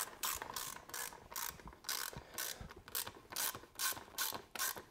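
Socket ratchet on a long extension clicking in a steady run of quick strokes, about four a second, as a P-clamp bolt is tightened into its capture nut through the wheel spokes.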